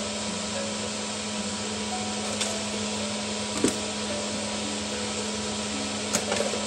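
Steady mechanical hum and hiss, with a few light clicks as a hard drive is pushed into a docking station and the dock is switched on.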